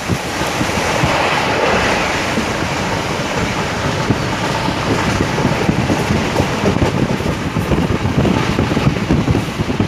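Indian Railways express train running along the track, heard from on board: a steady rush of rail and wind noise with rapid rattling clatter that gets busier from about halfway through.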